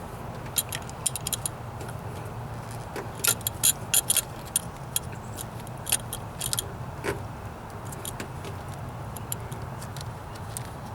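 Irregular small clicks and rattles of a throttle cable's snap-in plastic retainer and its metal fittings being pressed and worked by hand to release it from its mount, thickest a few seconds in, over a steady low hum.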